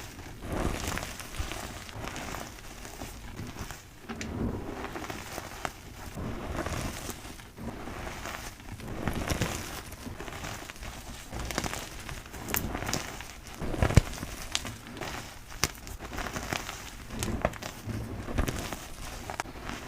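Blocks of gym chalk crushed and crumbled by hand: a crunching, crumbling sound in irregular waves, with sharp cracks as pieces snap, the loudest about two-thirds of the way through.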